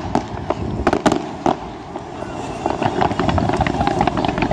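Fireworks going off: sharp bangs of aerial shells bursting in the first second and a half, then dense rapid crackling from about three seconds in, as ground-level sparkling effects fire.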